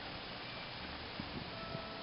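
Quiet outdoor background with a few faint soft ticks about a second in, as a mini golf ball rolls across the carpet green and catches the rim of the plastic cup without dropping in.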